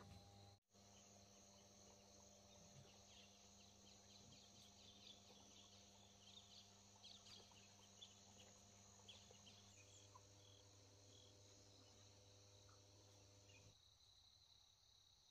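Near silence with faint, steady chirring of crickets and other insects and scattered small chirps. Under it runs a low steady hum that stops about fourteen seconds in.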